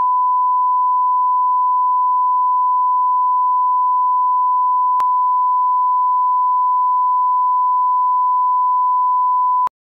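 Steady 1 kHz reference test tone, the standard "bars and tone" sine tone played with the colour bars. One unchanging pitch with a brief click about halfway through, cutting off abruptly just before the end.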